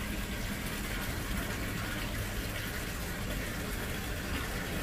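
Steady splashing of water running into a pond from a pump's return line.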